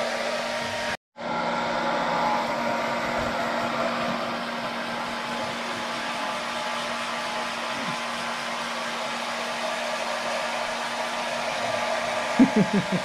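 Handheld hair dryer blowing steadily as it dries a wet Labrador retriever's coat, with a brief gap about a second in.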